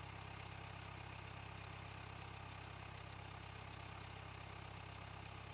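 A vehicle's engine idling, heard from inside the cab as a steady low hum with an even, fast pulse.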